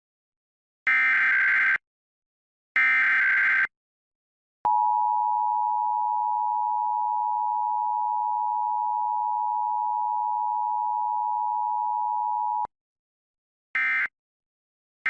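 Emergency Alert System test tones. Two warbling SAME header data bursts, about a second each, are followed by the steady two-tone EAS attention signal, held for about eight seconds before it cuts off. A short end-of-message data burst comes near the end.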